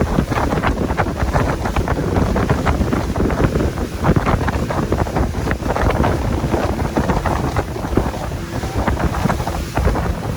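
Pontoon boat under way: wind buffeting the microphone, with water rushing and splashing against the hull, in irregular gusts.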